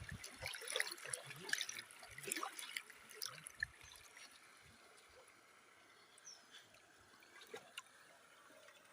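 Shallow water splashing and sloshing in irregular bursts for the first few seconds, then settling to a quiet background with a couple of short, faint bird chirps.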